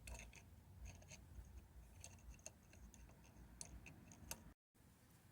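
Near silence with a few faint, scattered metal clicks from a thread tap being worked in a freshly drilled hole. The sound cuts out completely for a moment near the end.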